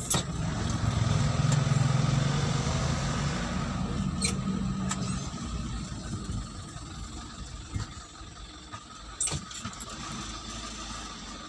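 Vehicle engine running and road noise heard from inside the cab while driving. The engine is louder over the first few seconds, then eases off, and there are a few short sharp knocks.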